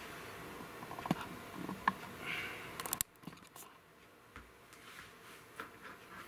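Light clicks and knocks of wooden pieces and tools handled on a wooden workbench. A short scrape comes about two seconds in and a quick run of clicks near three seconds, then only faint ticks.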